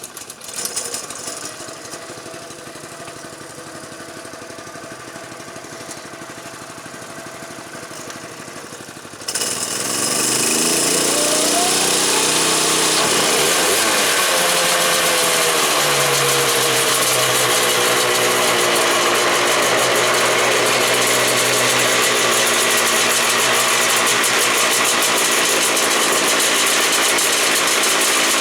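Honda NSR500 500cc two-stroke V4 race engine in big-bang firing-order spec, running. About nine seconds in it suddenly gets much louder, and the revs rise and fall a few times before it settles into a steady, loud run.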